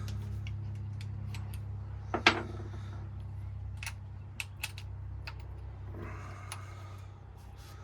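Small hand tools and metal bits clicking and clinking on a workbench as they are rummaged through, with one louder clack about two seconds in, over a steady low hum that slowly fades.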